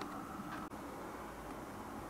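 Steady low background noise, with a faint click or two in the first half-second from a cat's mouth on a metal food tray.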